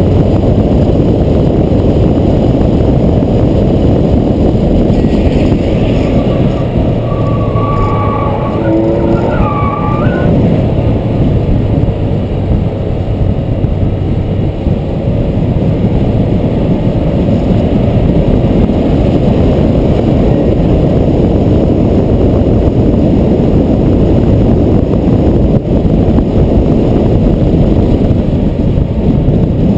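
Loud, steady wind and road rush on the microphone of a camera riding on a car that follows a downhill longboarder at speed. Between about six and ten seconds in, a few brief squeals rise above it.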